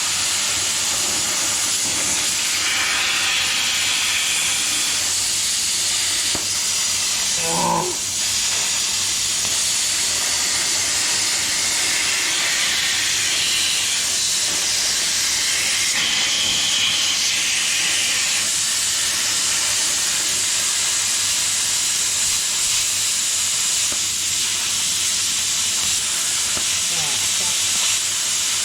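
Plasma cutter cutting sheet steel: a steady, loud hiss of the air jet.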